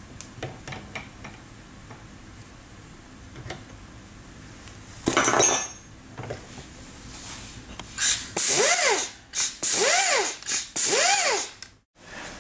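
Lindova pneumatic tool's air motor, clamped in a vise, run in four short bursts near the end: each time a loud rush of exhaust air with a whine that rises in pitch as it spins up and falls as it slows. Earlier come light metal clicks of wrenches on the spindle, and about five seconds in a half-second hiss of compressed air at the hose coupling.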